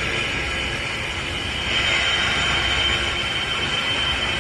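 Ghost box (spirit box) putting out a steady wash of static with a thin, steady high whine over it, before it starts scanning.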